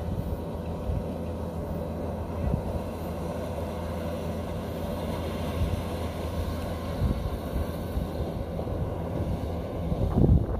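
Kubota DC-93 combine harvester's diesel engine running steadily as it harvests rice, with wind buffeting the microphone, strongest near the end.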